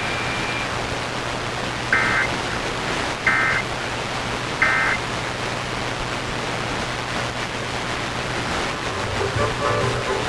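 Three short EAS end-of-message data bursts, each a brief two-tone digital warble, about a second and a half apart over steady hiss and a low hum. They signal that the emergency alert is over, and music comes in near the end as regular programming resumes.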